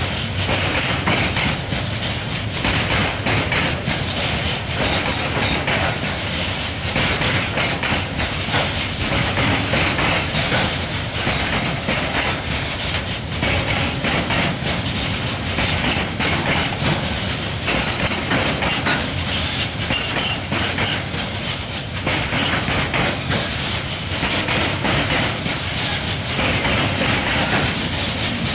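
Wheels of a heavy coal train's loaded hopper wagons rolling past close by, clattering over the rail joints in a steady rhythm that swells about every two seconds as each wagon's wheel sets go by.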